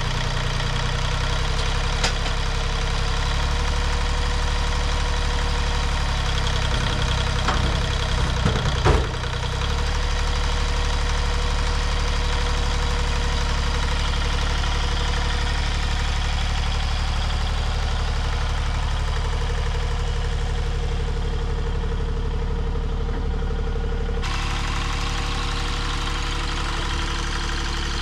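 Mini excavator engine running steadily while its hydraulic arm lifts a full water tote, with a few short clanks and knocks about seven to nine seconds in, the loudest near nine seconds.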